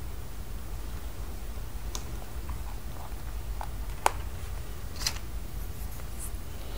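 A few light clicks and taps from small plastic toys being handled, the sharpest about four seconds in, over a steady low hum.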